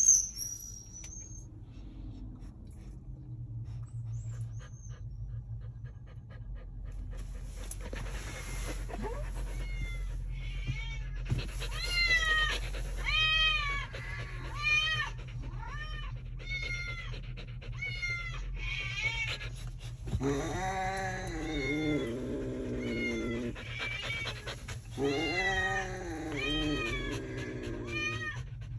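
Recorded cat meowing played for the dogs: a string of short rising-and-falling meows about one a second, with longer, lower drawn-out yowls about two-thirds of the way through.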